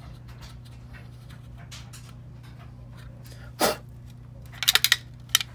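Handling noise from a hollow plastic part being turned in the hands: a short rushing sound a bit past halfway, then a quick run of sharp clicks and rattles near the end. A steady low hum runs underneath.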